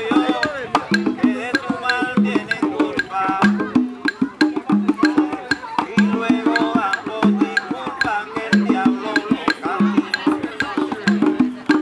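Afro-Cuban rumba music: conga drums playing a repeating low pattern, sharp wooden clicks keeping time, and a voice singing over them.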